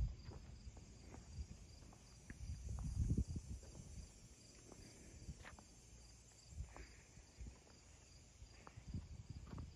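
Quiet outdoor background with a faint insect chirping in a steady, even high-pitched pulse. A few low muffled bumps come and go, the largest about three seconds in.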